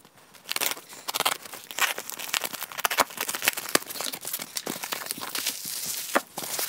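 Packing tape being slit and torn off a cardboard box and its flaps pulled open: an irregular run of crinkling, tearing and scraping cardboard.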